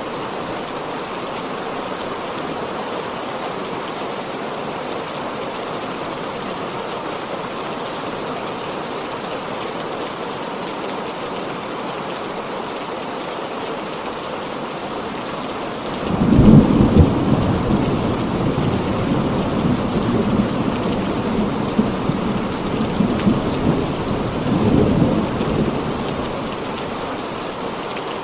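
Heavy rain falling steadily. About halfway through, a long roll of thunder breaks in suddenly, rumbling low for several seconds with a second swell before it fades back into the rain.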